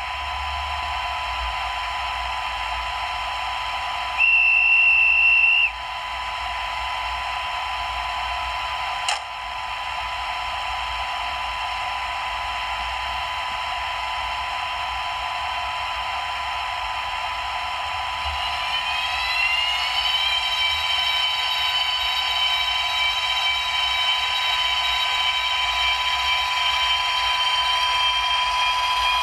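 H0-scale model electric locomotive's sound decoder playing through its small speaker: a steady hiss and hum of the running locomotive, a short high single-note tone about four seconds in, and a click near nine seconds. Around nineteen seconds the electric motor whine rises in pitch over a couple of seconds as the locomotive accelerates, then holds steady.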